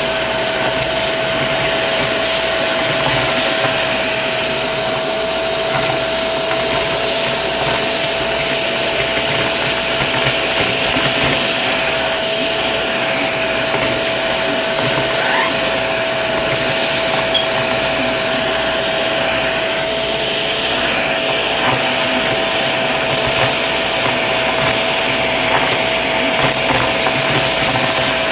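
Shark vacuum running with its crevice tool: a steady rush of air with a constant whine, over a continuous crunchy crackle of foil confetti and sequins being sucked up.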